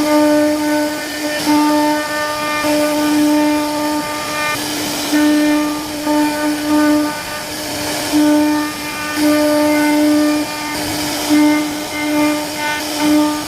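CNC router spindle carving a wooden door panel: a steady high whine that keeps breaking off and resuming as the bit moves through the wood, over a continuous hiss of cutting.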